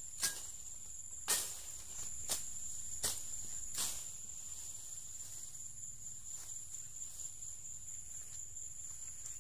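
A steady high-pitched drone of insects, crickets or cicadas, over low outdoor rumble. About five sharp clicks or snaps come roughly a second apart in the first four seconds.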